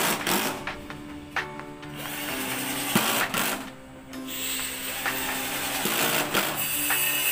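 INGCO cordless drill driving screws through a metal drawer slide into a plywood cabinet floor, in short runs, with background music throughout.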